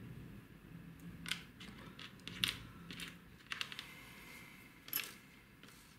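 Light clicks and taps of small hard parts and tools being handled during assembly of a miniature RC car chassis, scattered and irregular, the sharpest about two and a half and five seconds in.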